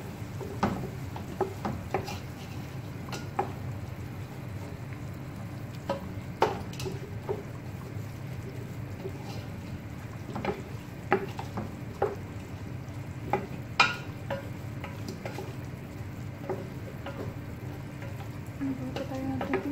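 Wooden spoon stirring diced vegetables in a thick sauce in a large aluminium pot on low heat. It scrapes and knocks against the pot at irregular intervals, over a steady low hum.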